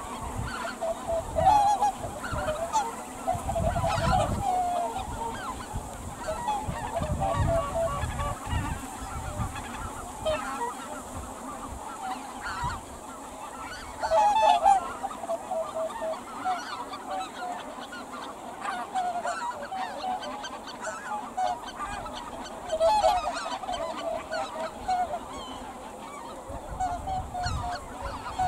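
A mixed flock of greater white-fronted geese and Aleutian cackling geese calling continually in many overlapping honks, with louder bursts of calling about four seconds and about fourteen seconds in.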